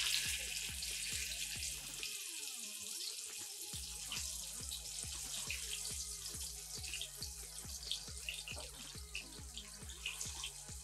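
Masala-coated sardines sizzling steadily in hot oil on a griddle, with small pops and crackles. Background music with a regular beat plays underneath.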